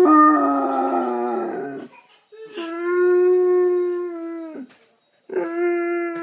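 Basset Hound howling: a long, level-pitched howl that slides down and stops about two seconds in, a second long howl of the same steady pitch ending with a downward slide, and a third starting near the end.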